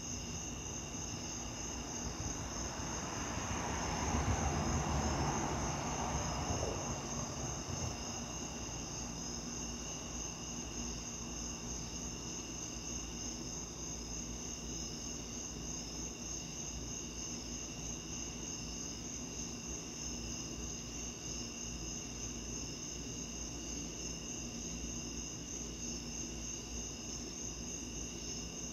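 Night insects, crickets, chirping in a steady, continuous chorus of high pulsing tones. A few seconds in, a rush of lower noise swells up and fades away again, like something passing.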